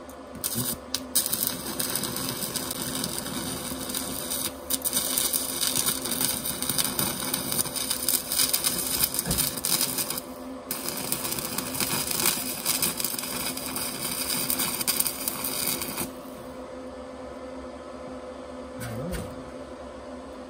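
Stick-welding arc from a small 120 A inverter arc welder burning a rod along a bead: a steady crackling sizzle that starts about half a second in and cuts off suddenly with a few seconds to go as the arc is broken. A steady low hum carries on underneath.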